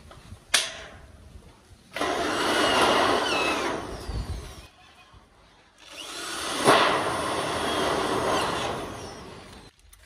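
Power tool run in two bursts of about three seconds each with a short pause between, after a sharp click about half a second in.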